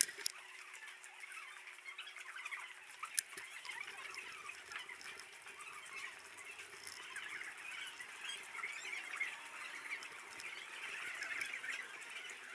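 Covered-arcade street sound played back at four times speed: shoppers' voices and footsteps sped up into a high, chattering squeak. A sharp click comes just after the start and another about three seconds in.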